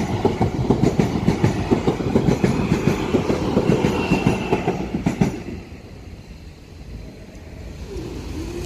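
Class 444 electric multiple unit running past over a level crossing, its wheels clattering fast and rhythmically over the rail joints. The clatter cuts off suddenly about five seconds in as the last coach clears, leaving a lower hum with a faint rising tone near the end.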